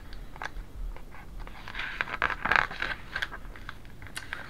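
Page of a large picture book being turned: a rustle of paper with small scrapes and clicks, loudest in the middle.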